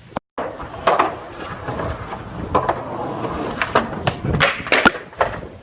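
A skateboard ride ending in a crash: the board's wheels rumble on pavement under a run of sharp knocks and thuds, loudest near the end, as board and rider hit the ground.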